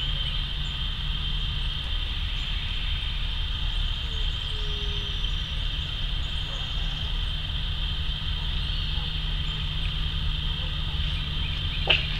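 Steady low mechanical drone, like a motor running, under a steady high-pitched whine. One sharp click comes just before the end.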